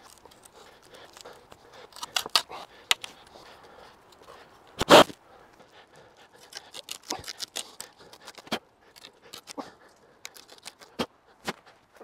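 A small flat drill bit turned by hand, boring a hole into a wooden pole: a run of short scraping and cracking clicks as the bit cuts the wood, with one louder crunch about five seconds in.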